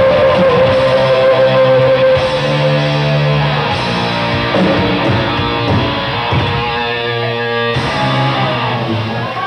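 Live rock band playing loud distorted electric guitars, with long held chords ringing as the song winds down to its end.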